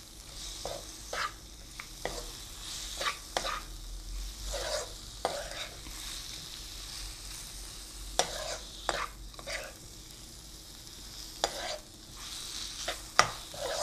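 Chicken pieces and masala sizzling in oil in a non-stick frying pan as a spatula stirs and scrapes them around the pan, in clusters of scraping strokes over a steady hiss. The chicken is being sautéed in the spice paste.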